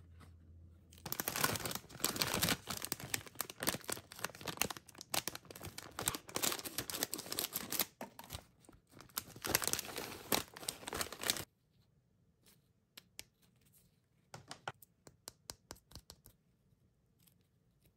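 Plastic snack pouch crinkling and being cut open with scissors: a dense run of crackling and snips for about ten seconds. Then it falls quiet, with a few light clicks and taps as the bone-shaped cookies are handled.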